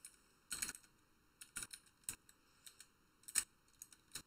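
Computer keyboard keys clicking as someone types: about a dozen faint keystrokes at an uneven pace.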